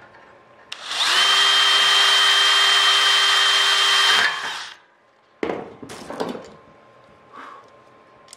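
Cordless drill drilling a rivet hole through an aluminium aircraft rib and spar: one steady whine of about three and a half seconds that eases off as it stops. A few short metallic clatters of tool handling follow.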